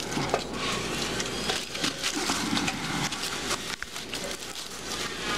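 Aluminum foil crinkling and rustling steadily as hands press and handle a foil-wrapped springform pan, with many small crackles.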